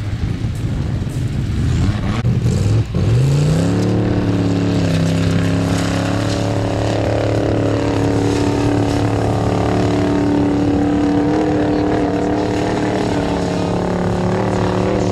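Formula Offroad hill-climb car's engine working hard on the climb. About three seconds in it revs up sharply, then holds at steady high revs.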